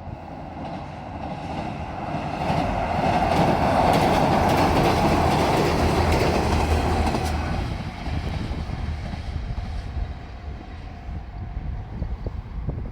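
JR Shikoku 185 series limited express diesel multiple unit passing, its diesel engines and wheels growing louder to a peak about four to seven seconds in, with the clickety-clack of wheels over rail joints, then fading as it moves away.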